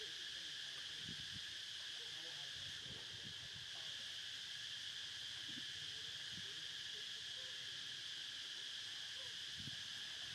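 A steady, high-pitched insect chorus that drones on without a break, with faint soft splashes now and then as monkeys swim in the pool.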